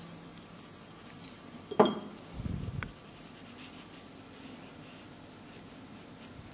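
A sharp clink of small hard objects, ringing briefly, about two seconds in, followed by a short low bump and a faint tick, as nail-art tools are handled at the palette.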